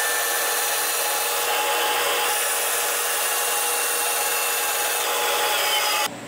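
Vertical bandsaw cutting a 7075 aluminum bar: a steady hiss of the blade in the metal over a steady whine, cutting off suddenly near the end.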